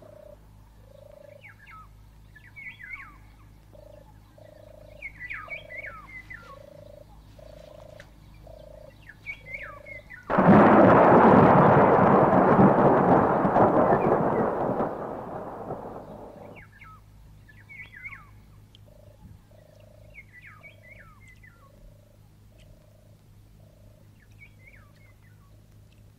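Birds chirping over a low call repeated about every half second; about ten seconds in, a sudden clap of thunder rumbles and fades over about six seconds, and the birdsong then carries on.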